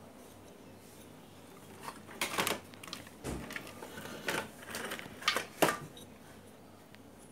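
Irregular clicks and knocks from handling a CRT television's circuit board and parts, starting about two seconds in, with one duller thump in the middle and the sharpest knocks near the end.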